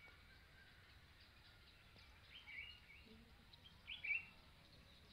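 Faint outdoor quiet broken by short chirping bird calls, a cluster about two and a half seconds in and a louder one about four seconds in.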